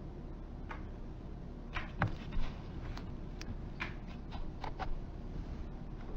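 A dozen or so light clicks and taps at uneven intervals, most of them in the first five seconds, over a steady low hum.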